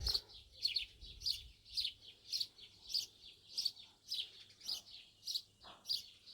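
A bird giving the same short, high chirp over and over at a steady pace, a little under two chirps a second.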